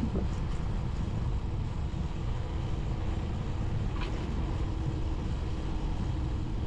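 Honda motorcycle engine running steadily while riding, under a constant low rumble of wind on the microphone.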